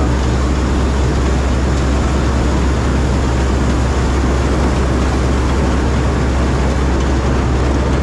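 Rice combine harvester's diesel engine and machinery running steadily: a loud, even drone with a strong deep hum and no change in speed.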